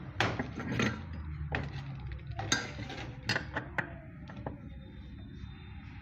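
Scattered metallic clicks and clinks of hand tools against a washing machine's motor mount as its bolts are worked loose, about a dozen irregular knocks that thin out near the end, over a low steady hum.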